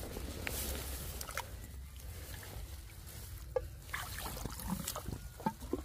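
Water trickling and splashing lightly, with a few small knocks and splashes in the second half.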